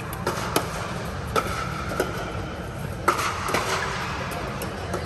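Pickleball paddles striking a hard plastic ball in a fast doubles rally: a run of sharp pocks, roughly one every half second to second, some ringing briefly in the hall. Fainter hits and a steady hubbub lie underneath.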